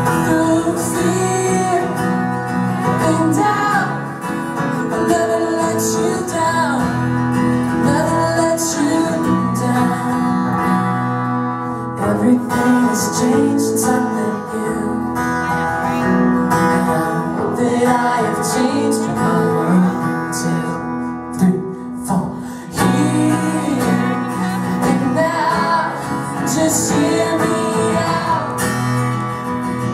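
Live acoustic band music: two acoustic guitars strumming with a man singing into the microphone, briefly dropping out about two-thirds of the way through.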